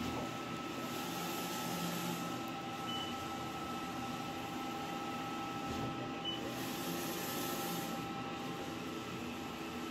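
Printer running with a steady mechanical hum and hiss and two faint held tones, with two brief high chirps about three seconds apart.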